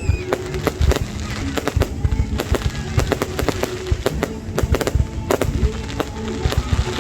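Fireworks going off in quick, irregular succession: many sharp bangs and crackles over a low rumble, with music playing underneath.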